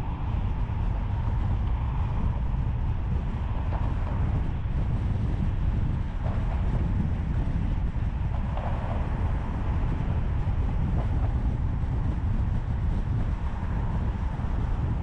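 Steady road noise of a moving car, picked up by a camera mounted outside the car: a constant low rumble of tyres and wind on the microphone.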